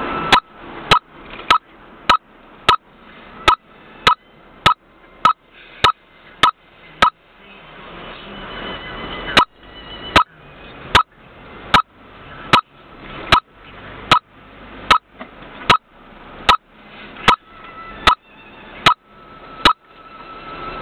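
Car turn-signal indicator ticking: sharp clicks with a short ringing tone, about one every 0.6 seconds, then a pause of about two seconds near the middle, after which it resumes a little slower, about one every 0.8 seconds. A faint steady cabin noise lies underneath.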